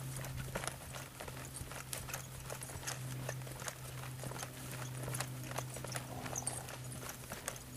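Paint mare trotting on the soft dirt of a round pen: a continuous run of muffled hoofbeats, over a steady low hum.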